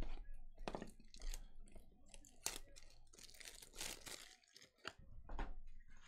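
Clear plastic packaging crinkling and tearing as it is handled close to the microphone, with a run of sharp clicks and rustles. The densest crinkling comes from about three to four seconds in.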